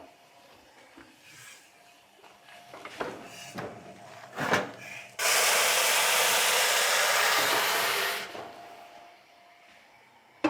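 A few light knocks and scrapes, then a sudden loud hiss of steam about five seconds in, as boiling water hits the hot metal steam tray in a fully preheated oven. It holds for about three seconds and then dies away.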